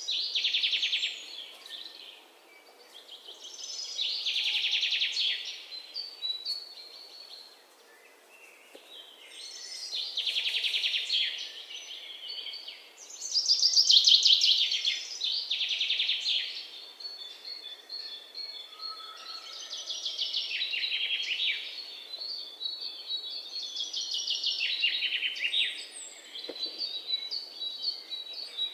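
A songbird singing: about six high, fast trilled phrases of one to three seconds each, a few seconds apart, with quieter chirps in between.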